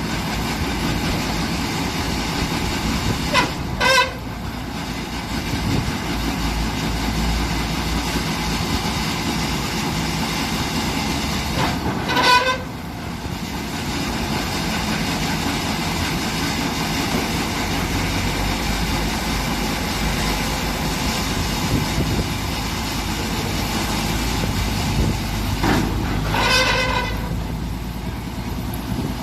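Heavy construction machinery, a backhoe, running steadily. Three short, high-pitched, horn-like tones sound about 4 seconds in, about 12 seconds in and near the end.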